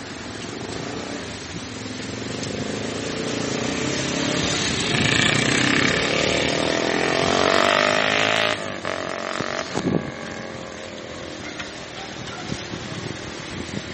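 A motor vehicle passing, its engine building up over about eight seconds with its pitch sliding, then dropping away suddenly.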